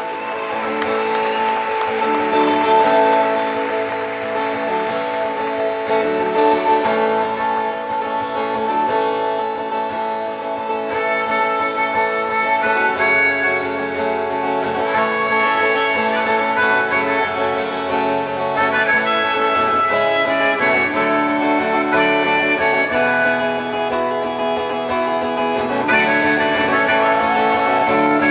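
Live harmonica and acoustic guitar playing an instrumental passage over a band, as heard from the audience of a concert hall.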